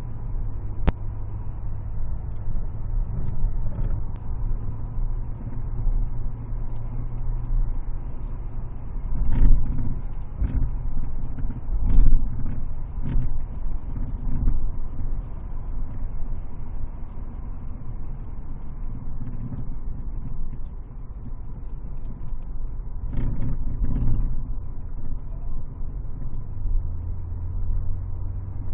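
A motor vehicle's steady low rumble, with a few louder thumps and a faint steady high tone running through it.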